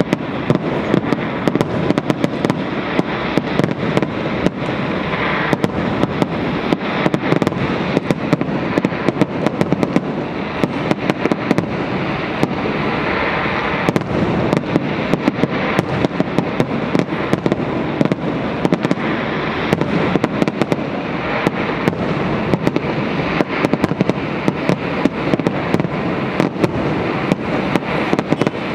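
Fireworks display going off: a dense, unbroken run of bangs and crackling, many reports a second with no gap.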